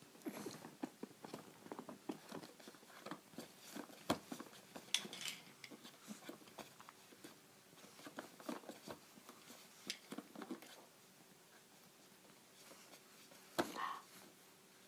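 A baby's small mouth noises: irregular lip smacks and clicks, with a few brief louder sounds about four to five seconds in and near the end.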